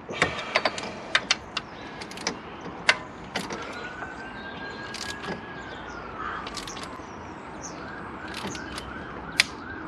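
Torque wrench ratchet clicking in short runs as an alternator mounting bolt is tightened to torque, with one louder click near the end. A faint tone rises and falls in the background midway, followed by faint repeated chirps.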